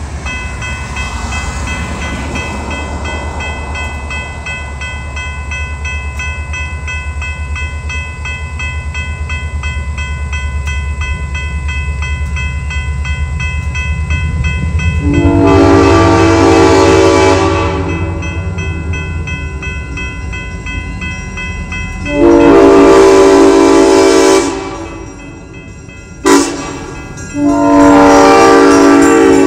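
Diesel locomotive's multi-chime air horn sounding the grade-crossing signal as the train approaches: two long blasts, a short one, then a long one, over a low steady rumble.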